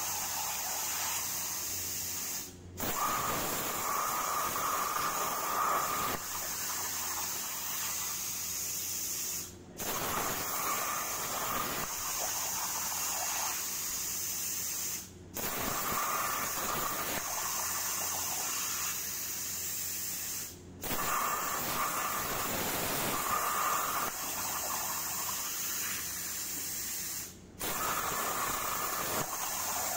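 Hypertherm Powermax85 plasma torch on a CNC table, a steady hiss of air and arc cutting 10-gauge steel at 45 amps with FineCut consumables. The sound drops out briefly five times, every five to seven seconds.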